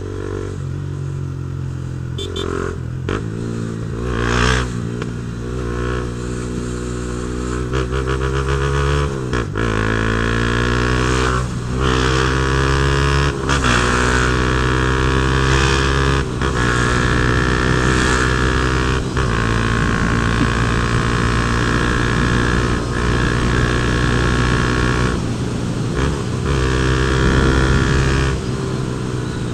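Honda CB Twister single-cylinder motorcycle with an aftermarket Protork Mine 3 sport exhaust, accelerating through the gears. The engine note rises and drops back at each upshift, about four times, then holds a steady pitch for several seconds before easing off near the end.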